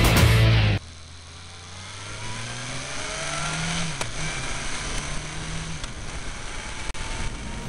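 Background rock music cuts off suddenly under a second in, leaving the onboard sound of a sports motorcycle's engine pulling along the road, rising in pitch as it accelerates and then holding steady, with wind rush over the bike-mounted camera.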